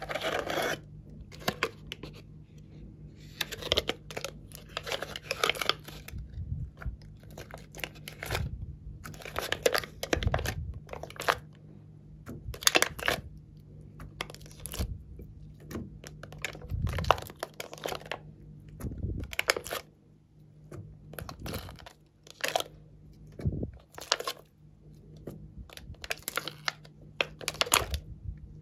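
Thin clear plastic tray crinkling and crackling as it is bent and glossy slime dots are peeled out of its cells, in short separate spells every second or two.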